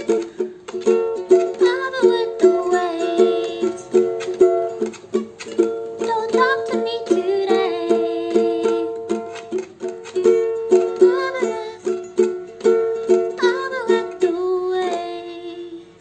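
Ukulele strummed in a steady rhythm, with a woman singing along. The strumming stops shortly before the end and the last chord dies away.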